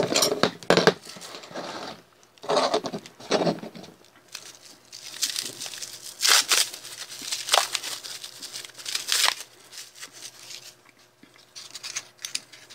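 Small plastic parts bags crinkling and rustling in irregular bursts as hands handle them and open them to get at the parts.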